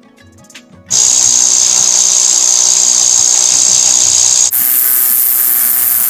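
Power drill with a long bit running steadily as it bores through a plastered brick wall, starting about a second in, with a brief dip and a slightly higher, brighter sound from about four and a half seconds in.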